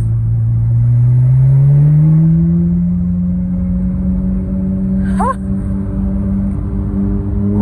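Ferrari F430's V8 through a Capristo exhaust, heard from the cabin, rising in pitch over the first few seconds as the car accelerates, then holding a steady drone.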